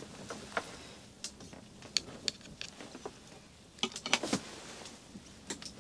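Scattered light clicks and taps from small gear being handled on a bench, with a quick cluster of them about four seconds in.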